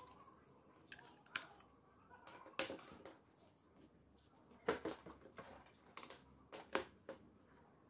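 Scattered soft clicks and taps of a USB cable plug and plastic charger being handled and plugged in by gloved hands, with faint rustling of cable and gloves between them. The sharpest clicks come in pairs about halfway through and again near the end.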